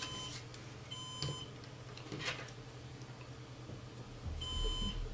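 Synology DS1815+ NAS alarm beeping, three short beeps a few seconds apart, each about half a second long: the warning that a drive is missing and the disk group is degraded.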